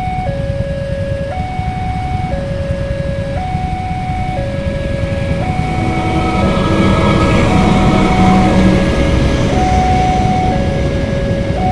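Railway level-crossing warning signal sounding a steady two-tone alarm, switching pitch about once a second. About halfway in, a KAI diesel-electric locomotive and its passenger train pass close by, and their rumble builds to its loudest a couple of seconds later.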